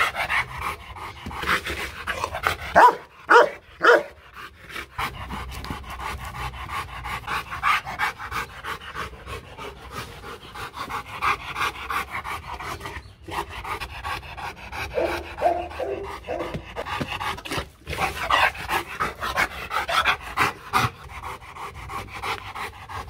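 Rottweiler panting hard with fast, regular breaths. About three seconds in it gives a short run of loud barks.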